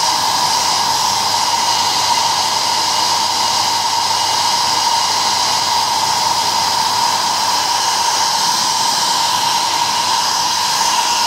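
Hair dryer running steadily, blowing hot air: a constant rush of air with a steady whine.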